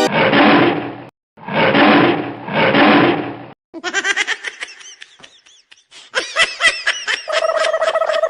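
Recorded tiger roar played three times in quick succession, each a rough growl about a second long, as a fake tiger sound. A stretch of high, wavering squeals and chatter follows.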